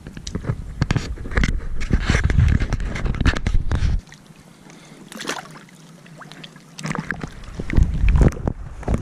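Wind buffeting the microphone in heavy low rumbles, with handling knocks and clicks, in two stretches: the first lasts about four seconds, it drops away for a few seconds, then it returns near the end.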